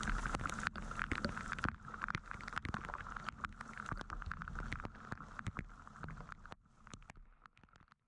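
Wind rumbling on the microphone in a rainstorm, with many irregular sharp taps of rain on the camera. It fades out over the last second and a half.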